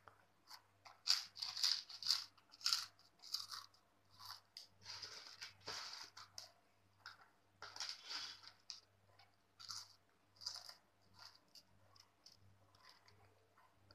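Crisp potato chips (Bingo Yumitos red chilli) being bitten and chewed, a run of irregular sharp crunches that thin out and grow fainter near the end.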